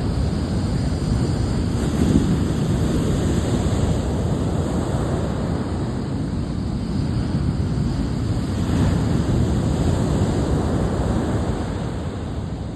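Wind gusting over the microphone in a low, rumbling rush, with the steady wash of ocean surf beneath it.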